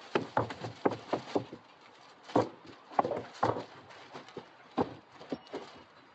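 An irregular run of sharp knocks and clicks, several a second and uneven in strength, with no steady engine running underneath.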